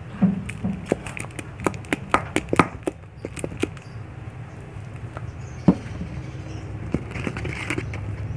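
Sharp little plastic clicks and taps, a quick run of them in the first few seconds and one louder tap a little later, as powder is shaken and tapped out of a plastic bottle onto a spatula in a plastic cup, over a low steady hum.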